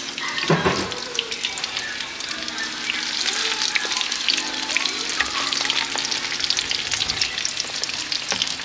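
Crinkle-cut fries deep-frying in a pan of hot oil: a steady, dense crackling sizzle.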